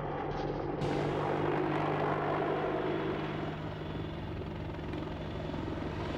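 AH-64 Apache helicopter flying, its rotor beating and engines running steadily; the sound turns brighter and fuller about a second in.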